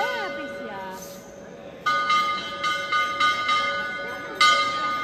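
Metal bells ringing. The ringing at the start dies away, then from about two seconds in the bells are struck again about six times at uneven intervals, each stroke ringing on. A few short rising-and-falling calls sound near the start.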